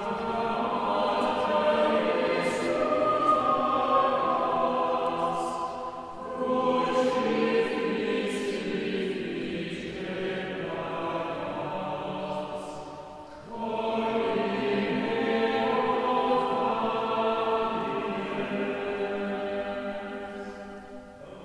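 A group of voices singing Latin plainchant in unison in a reverberant church, in three long phrases with short breaks between them.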